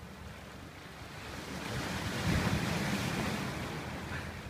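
A sea wave breaking and washing up a stony beach: the rush swells about a second in, is loudest in the middle, then ebbs away.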